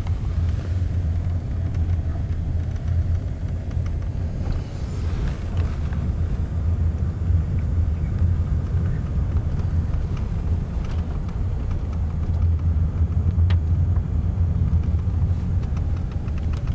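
Steady low rumble of a car's engine and tyres heard from inside the cabin while driving slowly along an ice-covered street.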